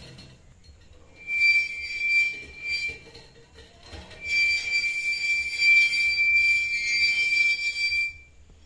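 High-pitched metallic squeal from the soilwork machine as it runs: one steady tone with an overtone, starting about a second in, breaking off briefly around the three-second mark, then holding for about four seconds before stopping.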